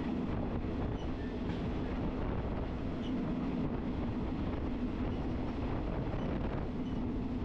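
Passenger train running along the track: a steady rumble of the wheels on the rails under a constant low hum.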